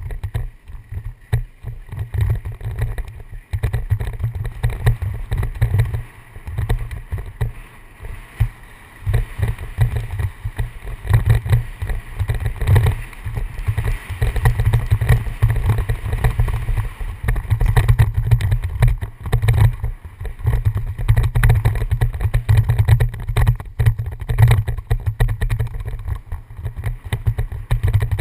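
Wind buffeting a helmet-mounted camera's microphone on a fast downhill mountain-bike descent, a heavy, uneven rumble. Over it runs a constant rattle and clatter of the bike and its tyres on the loose gravel trail.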